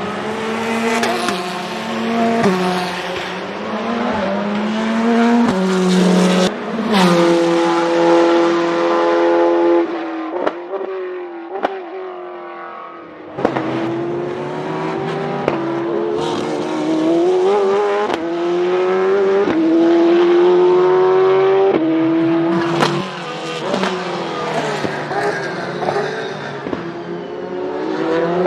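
Corvette C8.R GTE race car's 5.5-litre V8 accelerating hard, its pitch climbing and stepping down at each upshift. About ten seconds in it lifts off, the pitch falling through downshifts. It then pulls up through the gears again.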